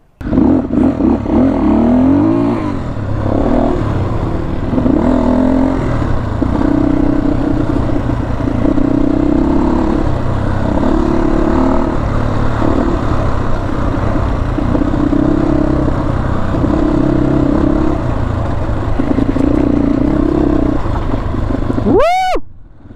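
Motorcycle engine running on an off-road ride, the throttle opening and closing every couple of seconds over a steady low rumble. The engine sound cuts off sharply near the end.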